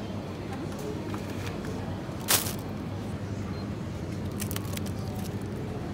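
Steady low hum of a supermarket's refrigerated aisle, with one sharp click about two seconds in and a few lighter clicks near the end.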